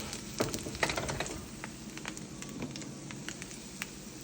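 A few sharp clicks and knocks from handling a pan in the first second or so, over a faint crackle of sizzling that dies down after the pan is taken off the burner.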